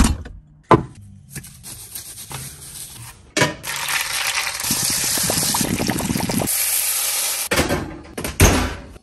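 Whole chicken lowered into hot fat in a Dutch oven, sizzling loudly and evenly with crackles for about four seconds, starting suddenly about a third of the way in. Near the end, two sharp knocks of the heavy pot going onto the oven rack.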